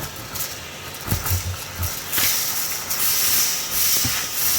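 Vacuum cleaner running, sucking mouse-nest debris out from behind a truck's dashboard panels as a steady hiss, with a few low knocks about a second in.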